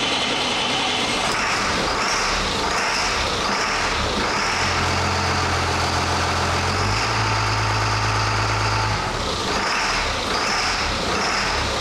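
Caterpillar 3126 inline-six diesel engine running, heard from inside the cab of the swapped Ford F-350. A low hum comes in about five seconds in, steps up in pitch about seven seconds in, and drops away about nine seconds in.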